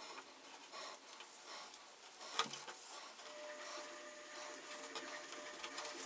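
Self-adhesive sealing tape being pressed by hand along the edge of a wooden lid: faint rubbing and rustling, with a sharp click about two and a half seconds in.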